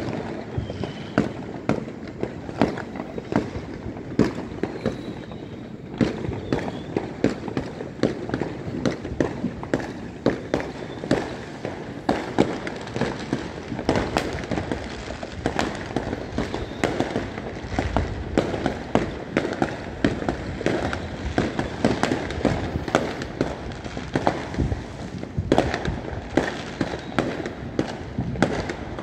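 Fireworks going off across the city: a dense, irregular patter of overlapping bangs and cracks, near and far, over a steady rumble.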